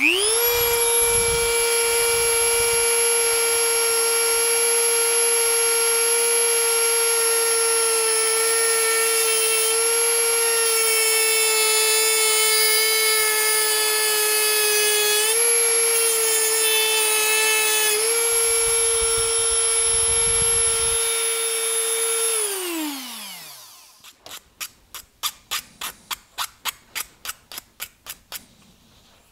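Dremel rotary tool with an abrasive cut-off wheel running at a steady high whine while cutting through a steel-coil throttle outer cable, its pitch sagging slightly now and then as the wheel bites, then spinning down with a falling whine about 22 seconds in. After that come quieter, quick scraping strokes at about four a second as the cut end's burrs are filed down.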